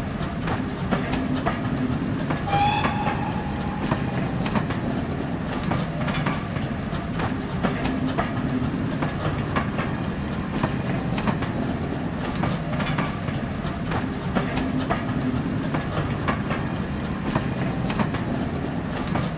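Train running past, its wheels clicking rhythmically over rail joints under a steady rumble, with a short toot about two and a half seconds in.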